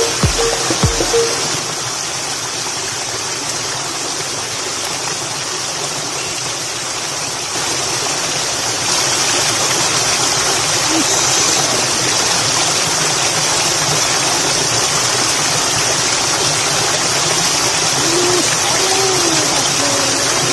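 Small cascade of water spilling over a rock into a shallow ditch pool: a steady rushing splash that grows louder about eight seconds in. A few music beats die away about a second in.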